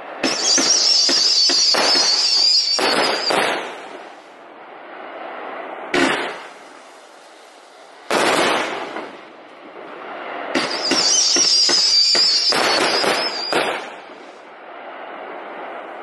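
A "Space X" consumer firework cake firing. There are two long volleys of rapid shots, bursts and crackle, each with a high wavering whistling tone through its loudest part, and a lone shot between them about six seconds in.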